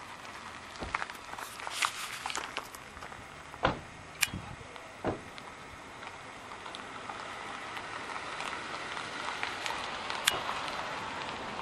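Footsteps on gravel and dirt, with a few sharp knocks in the first half. A steady outdoor noise grows louder over the second half.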